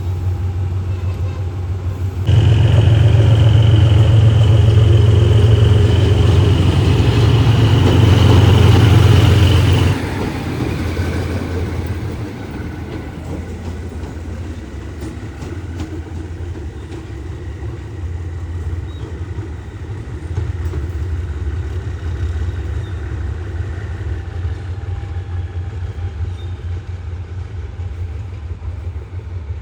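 Diesel train engine running with a steady low rumble. About two seconds in, a much louder sound with a steady high tone starts abruptly, lasts around eight seconds and cuts off, leaving the rumble.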